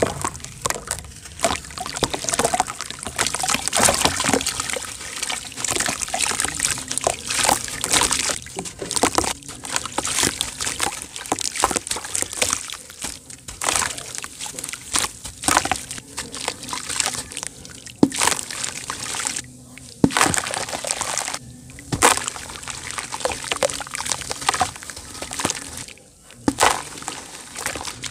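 Chunks of gritty dirt crumbled by hand into a tub of water: the grit pours and splatters into the water with continual crackling and many sharp ticks. The sound breaks off briefly twice in the later part.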